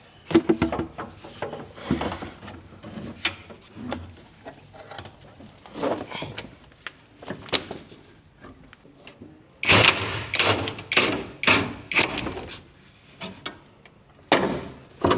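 Irregular knocks, clicks and clatters of hand tools and metal parts as the fuel tank is worked loose from the car's underside, with a denser run of sharp knocks about ten seconds in.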